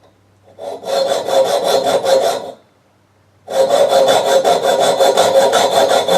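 A tool rasping on copper, most likely while shaping the copper ring, in two bursts, the first about two seconds long and the second about three, each with a quick regular rhythm of about six strokes a second.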